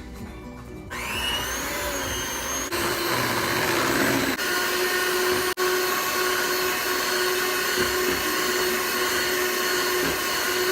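Electric mixer running as cake batter is mixed: its motor spins up with a rising whine about a second in, cuts out for an instant about five and a half seconds in, then keeps running steadily.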